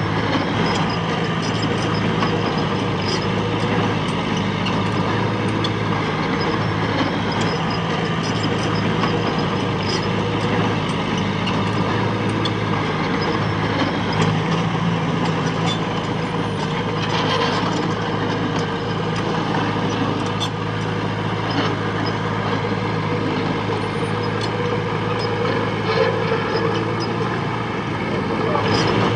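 Diesel engine of heavy earthmoving machinery running steadily, with scattered light clicks and knocks over it.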